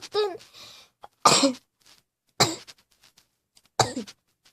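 A girl coughing in a string of short, sudden coughs, about one every second and a quarter, four in all.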